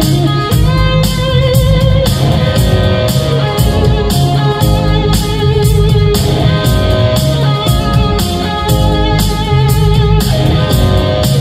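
Distorted electric guitar solo on a Warmoth Strat-style guitar through a Line 6 HX Stomp's Marshall Plexi amp model with a Marshall 4x12 Greenback cabinet impulse response, full of bent, held notes with wide vibrato, over a live band's drums and keyboard.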